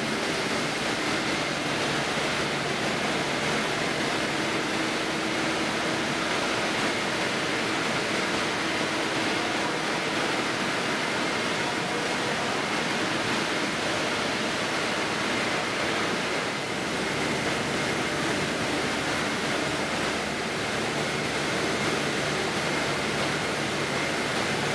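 Steady running noise of a food-processing factory floor, with machinery and ventilation running together and a faint high whine held throughout.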